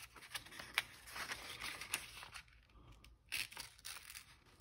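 A sharpened steel single-bevel broadhead slicing through a sheet of paper: a soft hissing rasp with a few crisp ticks of paper, then a second short cut a little after three seconds. This is a sharpness test of the freshly polished edge, which cuts right through the paper.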